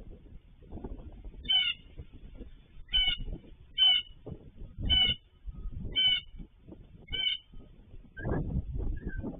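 A bird calling repeatedly: about six short, harsh call notes roughly a second apart, then two fainter, lower notes near the end. Irregular low noise runs underneath.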